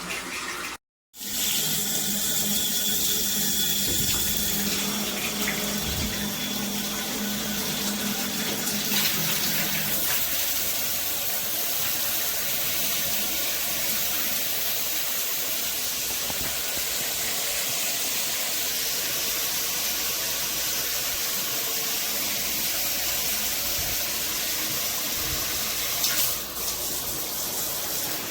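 Shower head running: a steady hiss of spraying and splashing water, cut off briefly about a second in.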